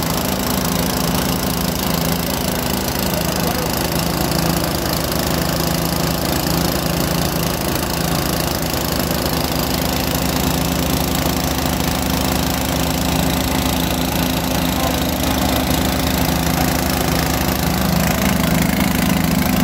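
Small engine of a water-well drilling rig running steadily at constant speed, getting a little louder near the end.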